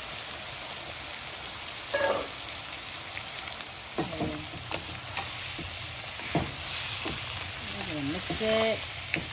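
Butter and garlic sizzling steadily in a wok while cooked Dungeness crab pieces, sliced hot links and corn are stirred with a wooden spatula, with a few clicks and knocks of shell and spatula against the pan.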